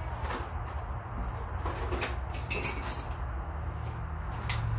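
Small metal parts being handled at a drill press: scattered clicks and light metallic knocks, the sharpest about two seconds in, over a steady low hum.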